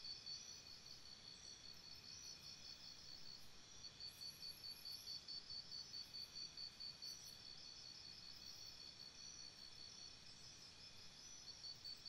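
Faint insect chirping: a high pulsed note repeating about four times a second, fading for a few seconds in the second half and coming back strongly near the end.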